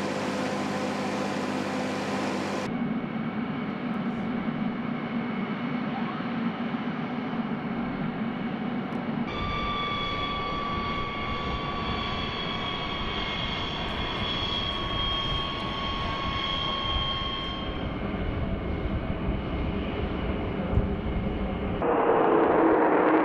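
Jet aircraft engine running, heard across several shots that cut abruptly from one to the next. In the middle stretch its whine holds several tones that slide slowly down in pitch. Near the end a louder rushing noise cuts in.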